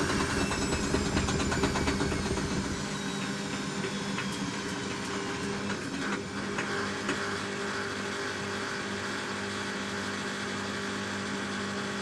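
Front-loading washing machine winding down from a 500 rpm interim spin during a suds-lock cycle: a slowly falling motor whine and a low drum rumble that dies away about three seconds in, leaving a steady machine hum.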